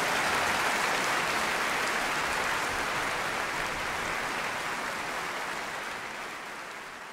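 Concert hall audience applauding after the final chord of an orchestral overture, a dense even clapping that slowly dies away over the last couple of seconds.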